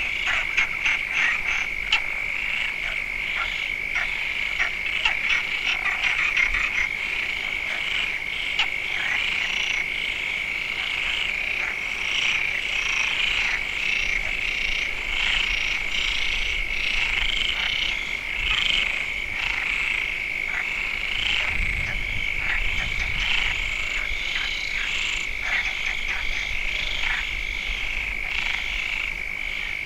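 Frog chorus: many frogs calling at once, a steady high-pitched trill under a dense scatter of overlapping short croaks.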